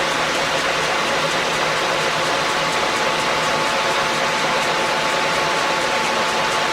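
Leblond Dual Drive engine lathe running under power, a steady mechanical whir with a constant high whine.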